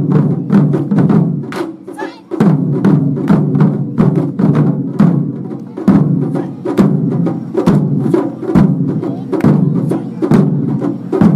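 Japanese taiko drums played in a fast, driving rhythm of hard strikes, with brief breaks between phrases.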